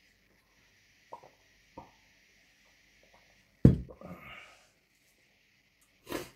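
A drinking glass set down on a table with one sharp knock, the loudest sound, a little over halfway in. Around it are quieter mouth and breathing sounds from a man drinking water and eating by hand: a couple of soft clicks about a second in and a short breathy noise near the end.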